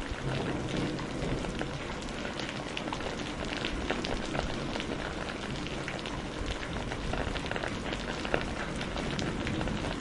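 Steady rain falling on a surface: an even hiss scattered with the ticks of individual drops.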